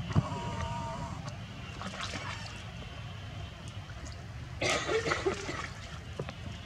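Young macaques scuffling in a chase on wet rock: a short high squeal just after the start, then a harsh, noisy screech lasting about a second, around five seconds in.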